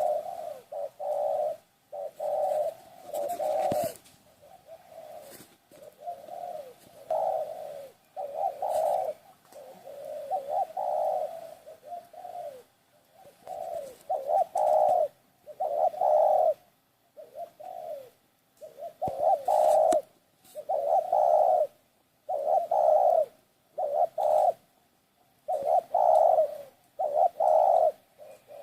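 A dove cooing over and over: short, low coos, often in pairs, with brief pauses between them.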